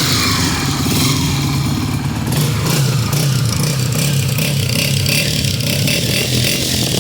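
Honda CG 125 single-cylinder four-stroke engine running steadily, with its new tappet rods just fitted to cure a tappet noise.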